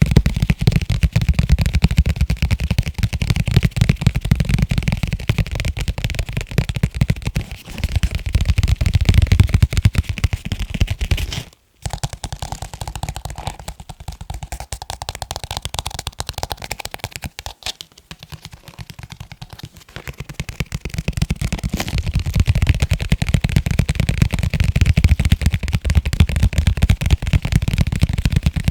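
Fast tapping on leather cases: a dense, continuous run of rapid taps with a dull, low body. It breaks off for an instant about twelve seconds in, goes on lighter and thinner, and turns heavier again about twenty seconds in.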